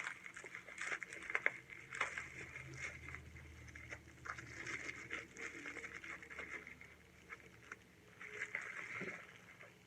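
Faint handling noise from speed cubes and their packaging being unpacked: scattered light clicks and rustling.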